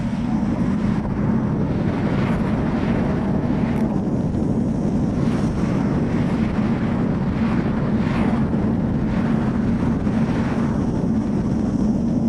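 Wind rumble on the microphone and road traffic during a bicycle ride, sped up eight times, so the rumble sits as a steady low hum. Passing cars go by as several quick whooshes.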